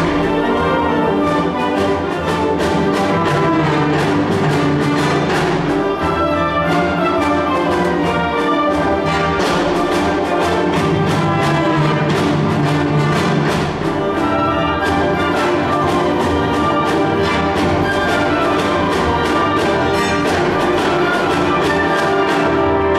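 Youth symphony orchestra playing a loud full-orchestra passage, strings and brass sounding together.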